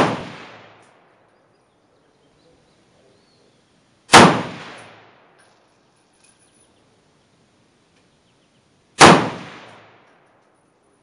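Romanian FPK Dragunov rifle in 7.62x54R firing two single semi-automatic shots about five seconds apart, each a sharp crack followed by about a second of echo under the range roof. The tail of a previous shot is fading at the very start.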